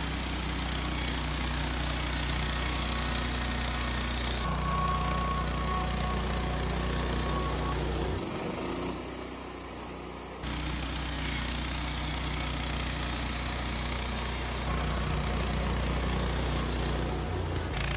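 Wood-Mizer LT15 Start band sawmill running steadily while it edges ponderosa pine flitches. The sound changes abruptly several times and is quieter for a couple of seconds in the middle.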